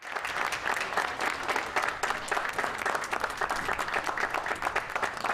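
Audience applauding: many hands clapping together in a steady, dense stream of claps.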